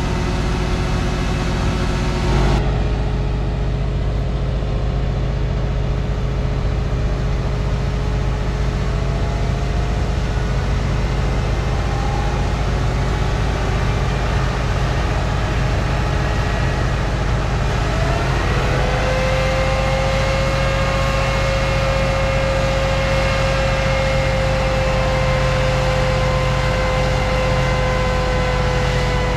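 Heavy farm machinery engine running steadily with a deep drone; about eighteen seconds in, a whine rises in pitch and then holds.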